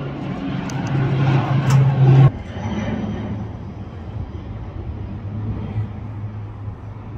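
Engine hum with a low steady tone, growing louder and then cutting off abruptly about two seconds in; a quieter, lower-pitched hum carries on after.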